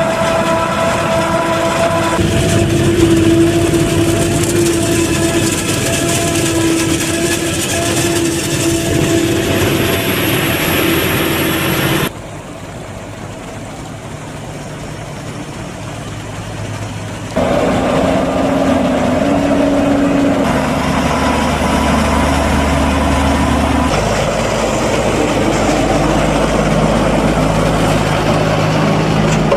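Heavy farm machinery at work on a maize harvest: the diesel engine and chopping of a Claas Jaguar forage harvester, with a Fendt tractor and forage wagon running alongside. About twelve seconds in it gives way to a quieter stretch of a John Deere tractor and telehandler working the silage clamp, and after about seventeen seconds louder tractor engine noise returns, ending with a Fendt 818 Vario tractor driving past.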